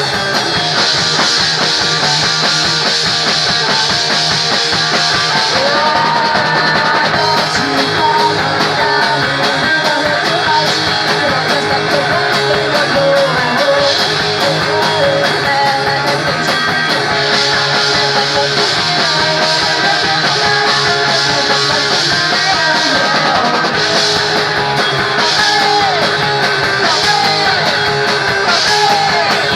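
Punk rock band playing live: distorted electric guitars, bass and drum kit with cymbals running loud and steady.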